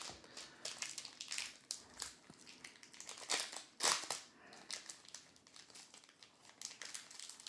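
Magic: The Gathering booster pack's foil wrapper crinkling and crackling in the hands in irregular rustles, with a sharper crackle about four seconds in.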